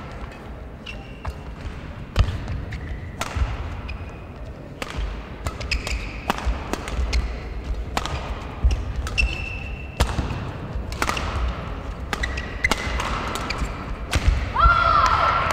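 Badminton rally in a large hall: a string of sharp racket hits on the shuttlecock, with shoes squeaking on the court floor and thudding footfalls. Near the end there is a louder, longer squeal.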